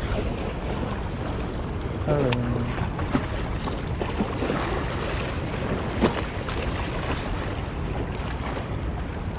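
Steady wind buffeting the microphone by open water, with a brief voice sound about two seconds in and a single sharp click about six seconds in.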